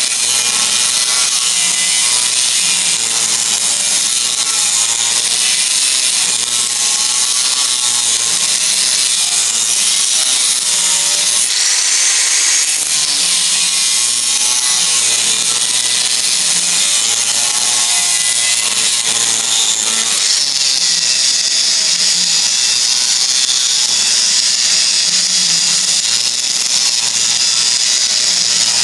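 Angle grinder with a cutting disc running under load as it cuts slots into a steel bar, the motor's pitch wavering as the cut bites and eases. About twelve seconds in the cut eases off for a moment, and the sound grows brighter and harsher from about twenty seconds.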